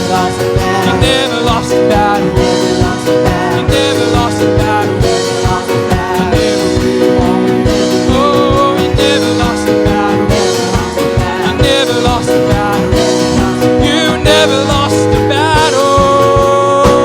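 Worship band music with drum kit and guitars playing on without lyrics, a wavering lead melody over steady chords.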